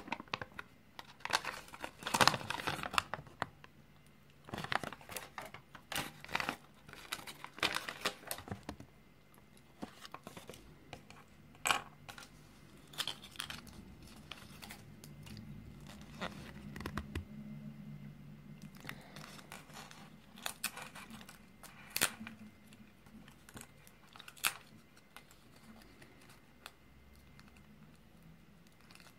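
Crinkling and rustling of a small paper toy leaflet being unfolded and folded by hand, with scattered sharp clicks and taps throughout.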